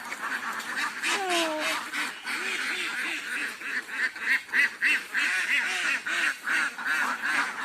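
Domestic ducks quacking, many short calls repeating and overlapping.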